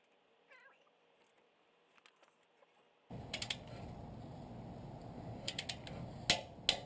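Near silence for about three seconds, then a steady background noise comes in abruptly. Over it, hand tools working on the suspension give scattered sharp clicks and clacks, a few at a time.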